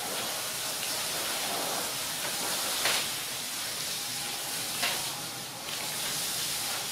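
Steady hiss with two or three brief light taps.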